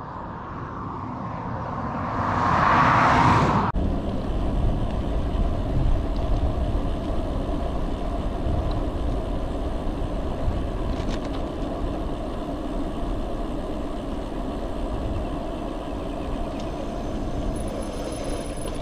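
A vehicle's rush swelling louder, cut off sharply about four seconds in. Then steady wind and tyre noise from a road bike riding along a highway.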